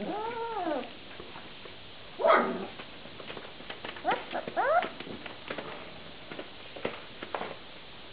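Vizsla puppies whining and yipping: a rising-then-falling whine at the start, a loud rough bark a little over two seconds in, and two quick rising yips around four seconds. Small paws patter and scratch on newspaper throughout.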